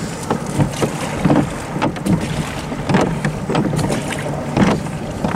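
Oars of a small dinghy being rowed, with a short sharp sound at each stroke, roughly once a second, over a steady rush of wind on the microphone.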